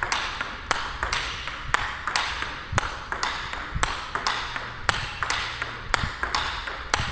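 Table tennis rally: a celluloid-type ping-pong ball clicking off the rackets (one a DHS Hurricane King Wang Chuqin blade) and bouncing on the table in an even back-and-forth rhythm, about two to three sharp clicks a second, echoing in a large hall.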